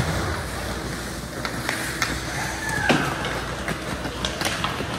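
Game noise in a gym or rink: a steady background murmur with scattered sharp knocks and a couple of short squeaking glides, the clearest about three seconds in.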